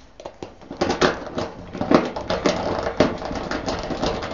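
Irregular clicks, taps and metallic rattles, several a second, of hand tools and wires being worked while a dryer power cord is fastened to the terminal block.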